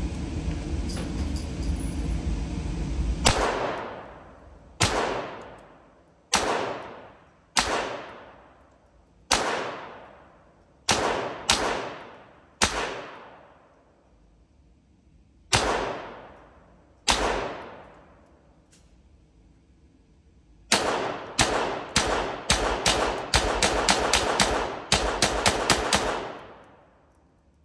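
AR-style rifle fired in an indoor range lane. First come about ten single shots a second or more apart, then a fast string of many shots near the end, each with a long echoing tail from the range walls. A steady low noise stops about three seconds in, just before the first shot.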